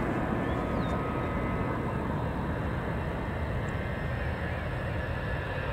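The four turbofan engines of a BAe 146-100 jet run steadily as it turns and lines up on the runway: an even rumble with a steady whine over it.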